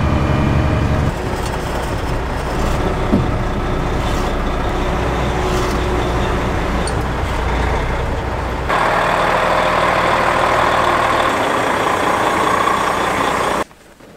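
Semi truck's diesel engine running steadily, heard from inside the cab as the truck maneuvers. The sound shifts about two-thirds of the way through and drops away sharply near the end.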